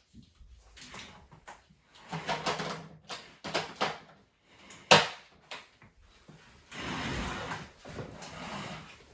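Scraping and rubbing on the inside of a MacBook Pro's case as the battery bay is cleaned out, in irregular strokes with a sharp click just before five seconds in.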